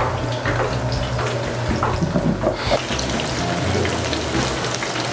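Shrimp coated in egg white and cornstarch deep-frying in a wok of hot oil, sizzling and crackling as pieces are dropped in. The sizzle grows louder and denser about two and a half seconds in as more shrimp go into the oil.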